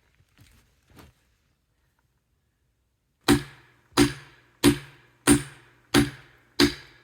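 A hand tool chopping into a log to split it: six evenly spaced sharp blows, about three every two seconds, each with a brief ringing tail, starting about three seconds in.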